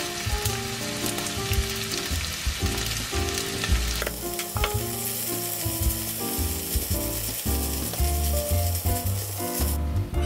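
Shrimp fried rice sizzling in a hot pan while a silicone spatula stirs and scrapes it, with a few sharp clicks about four seconds in. The sizzling cuts off suddenly near the end, and background music with a steady bass line plays under it.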